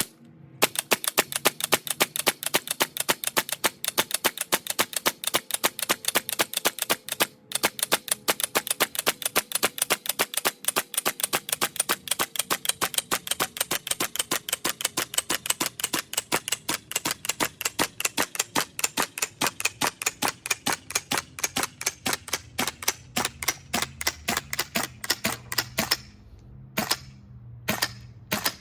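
GHK HK416A5 gas blowback airsoft rifle firing a long string of rapid semi-automatic shots, about five a second, each a sharp clack of the bolt cycling. There is a brief break about seven seconds in and a few short pauses near the end.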